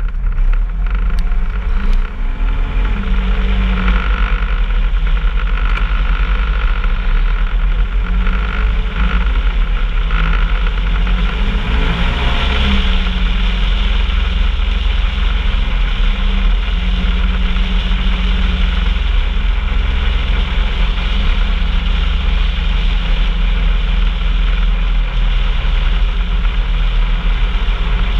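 Off-road vehicle engine running steadily under way, a continuous low rumble with noise over it.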